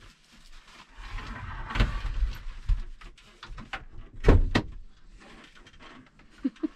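Shuffling and rustling as a person climbs into a van's front seat and turns it on its swivel base, with two sharp clunks close together about four seconds in.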